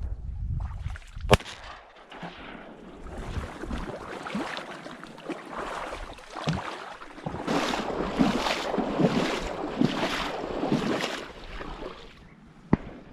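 A shotgun shot about a second in. Later comes a run of rhythmic splashing through shallow marsh water, about six strokes in under four seconds, and a second, sharper report sounds near the end.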